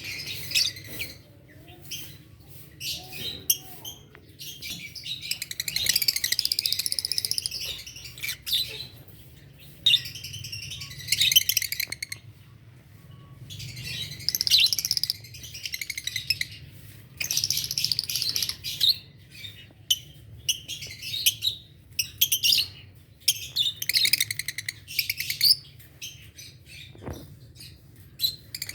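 Fischer's lovebirds chirping: shrill, high-pitched chatter that comes in bouts of one to two seconds with short pauses between, over a faint steady low hum.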